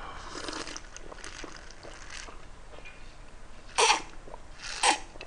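A person drinking from a glass in swallows, with two louder gulps about four and five seconds in.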